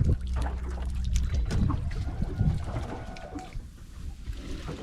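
Wet cast net being hauled into a boat, water trickling and dripping off the mesh with small knocks and rustles. A low steady hum runs through the first second and a half, then stops.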